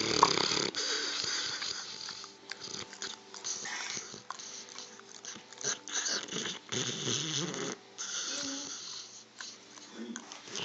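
Dog snoring: a run of uneven, wheezy breaths.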